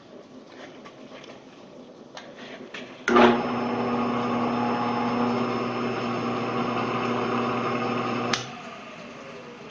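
Shopsmith's electric motor switched on about three seconds in, running steadily with a hum as it drives the headstock through the newly made step pulley and belt, then switched off about five seconds later and coasting down.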